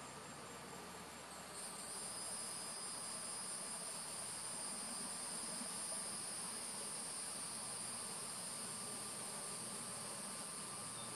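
Insects trilling in a steady, high-pitched drone that grows louder about a second and a half in and then holds.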